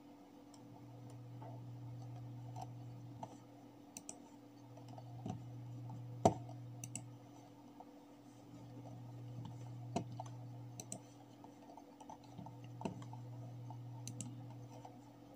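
Computer mouse clicking, a dozen or so scattered sharp clicks with the loudest about six seconds in. Under them runs a low steady hum that swells and fades about every four seconds.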